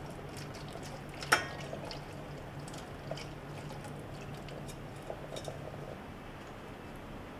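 Water poured from a metal pot over a bamboo steamer basket in a stainless-steel sink, splashing and dripping, with one sharp knock a little over a second in.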